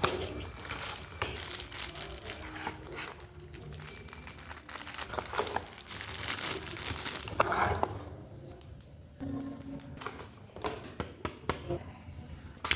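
Plastic packaging crinkling and rustling as it is handled and unwrapped, with many irregular short crackles.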